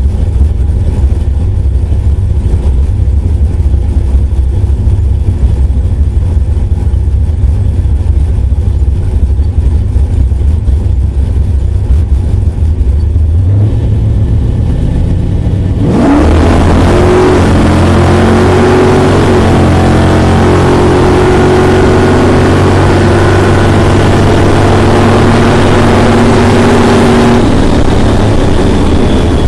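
Drag-race car engine with a rough, lumpy idle; about halfway through the revs rise sharply to a loud, steady high rpm that is held for about ten seconds before dropping back to idle.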